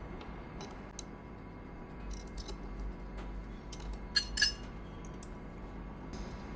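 Metal tooling being handled during a tool change on a milling machine: scattered light metallic clicks and clinks, with two louder clinks close together about four seconds in, over a steady low hum.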